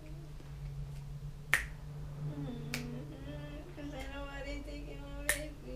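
Three sharp finger snaps, about a second and a quarter, then two and a half seconds apart, over a man humming a tune.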